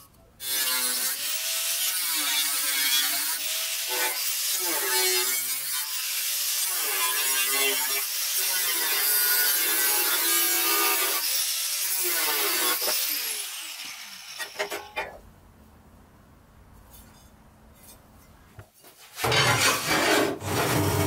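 Angle grinder with a cutting disc cutting sheet steel: a loud high whine that dips and recovers as the disc bites, lasting about fourteen seconds. After a few quieter seconds with some light taps, a drill press starts up near the end with a steady hum.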